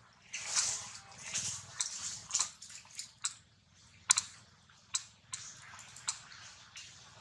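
Long-tailed macaque biting and chewing a piece of ripe yellow fruit: irregular smacks and crunchy bites, the sharpest about four seconds in.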